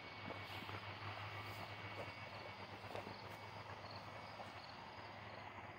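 Bullmastiff gnawing on a chew toy: faint, scattered clicks and crunches of teeth working on the toy.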